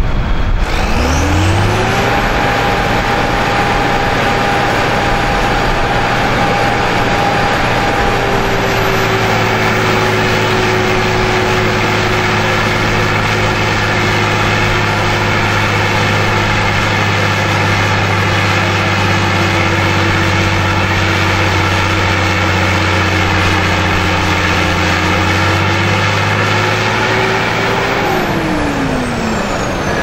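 A tractor's diesel engine revs up about a second in and holds high revs with a thin whine over it, then the revs drop away near the end.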